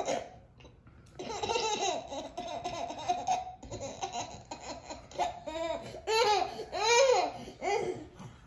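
A toddler laughing hard in repeated bursts of giggles, with a few louder rising-and-falling peals of laughter near the end.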